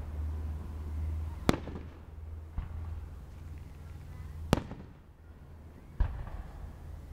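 Fireworks going off: two sharp loud bangs about three seconds apart, with softer bangs between them and near the end, over a low rumble.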